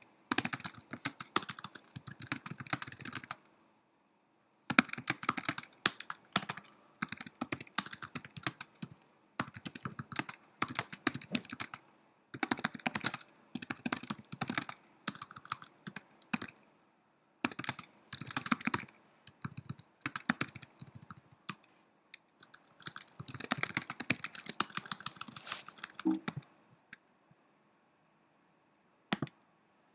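Typing on a laptop keyboard: rapid runs of key clicks in bursts of a few seconds, broken by short pauses. It goes quiet for a couple of seconds near the end, then a single key click.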